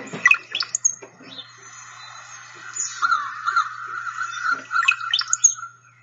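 Male brown-headed cowbird song from a recording: low gurgling notes running into thin, steeply rising whistles (the 'glug-glug glee'), heard twice, just after the start and again near the end. Between them comes a run of quick repeated notes.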